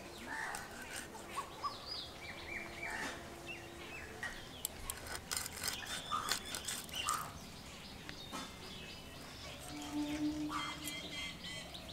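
Small birds chirping, with many short falling calls, over scattered short clicks and knocks.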